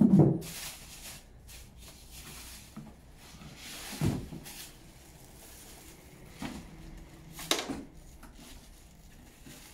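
Cardboard box and packing being handled as an overlocker is lifted out of its carton: a thump right at the start, another about four seconds in, and a sharper knock about seven and a half seconds in, with light rustling of cardboard and plastic between.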